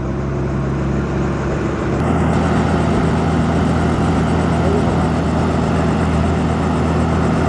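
Robinson helicopter's engine and rotor spinning up on the ground before takeoff: a steady drone that gets louder and steps up in pitch about two seconds in as the rotor speeds up.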